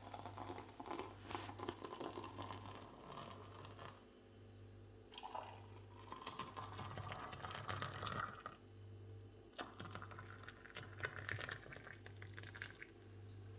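Thick, hot besan milk (gram flour cooked in desi ghee with milk) being poured from the pan into a serving glass. The pouring sound slowly rises in pitch as the glass fills.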